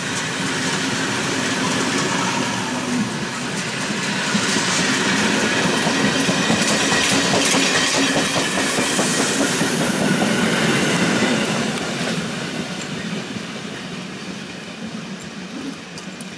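Steam-hauled special train rolling past, its wheels clattering over the rail joints. Loudest about halfway through, then fading as the train moves away.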